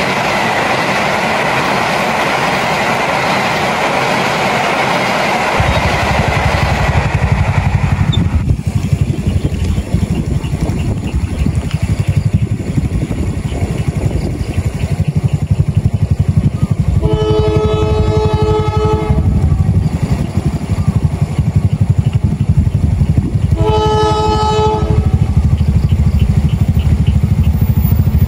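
Passing train rumbling and rushing, with the locomotive's multi-tone horn sounding two blasts about six seconds apart, the first about two seconds long and the second shorter.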